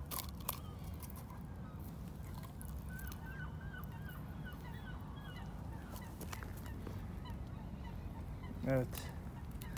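Birds calling faintly in a series of short, repeated notes over a low, steady background rumble.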